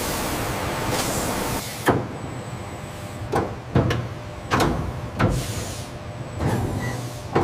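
Workshop noise: a steady hiss that stops a little under two seconds in, then a series of about seven sharp knocks and bangs at uneven intervals, some with a short ring after them.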